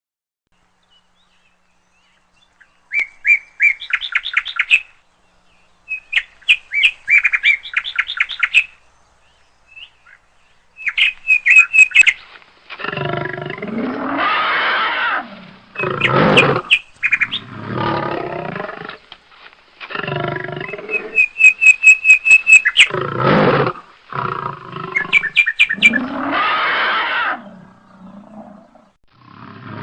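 Bird chirps in quick high trills, then a series of loud lion-like roars, each a second or two long, with more chirps between them: recorded animal calls played by robot animals.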